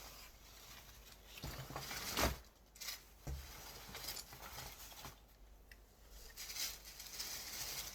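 Clothing being handled and rustled, fabric and packaging moved about in irregular bursts, with a couple of soft thumps about two and three seconds in.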